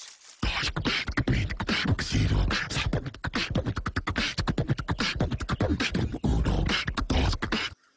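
Human beatboxing: rapid vocal percussion of clicks, snares and low kick-drum thumps. It starts about half a second in and stops just before the end.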